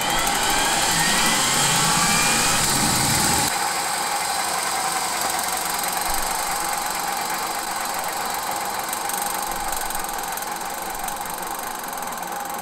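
GTD-350 helicopter turboshaft engine being cranked by its electric starter: a rising whine and rumble for about three and a half seconds. The starter then cuts out abruptly, and the turbine coasts with a steady high whine and hiss that slowly fades. It is an attempted start in which the engine does not light up and run.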